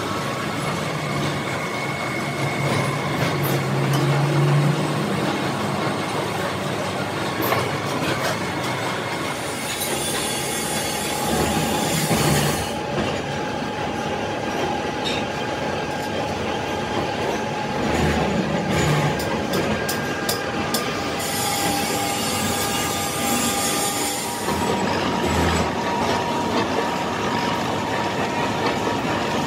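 A gear hobbing machine cutting teeth into the rim of a large steel gear: a steady, loud metal-cutting grind with high squealing tones running over it. The sound changes abruptly twice, about 12 and 24 seconds in.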